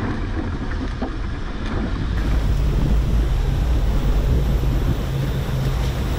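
Land Rover Defender fording a fast-flowing river: water rushing and splashing against the vehicle over a steady low engine sound, with wind on the microphone. It grows louder about two seconds in.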